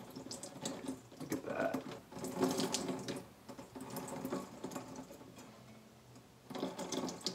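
Water splattering into a sink from a cheesecloth bundle of soaked, leached acorn meal as it is twisted and wrung out. The water comes in uneven splashes, with a last surge near the end.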